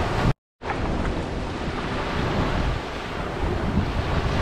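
Small waves washing onto a sandy beach, with wind rumbling on the microphone. The sound cuts out to silence for a moment about half a second in, then carries on.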